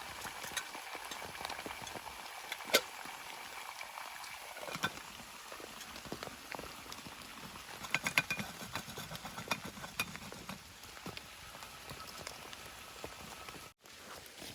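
Rain falling on a tarp shelter, a steady patter with scattered louder drops; it cuts out for a moment near the end.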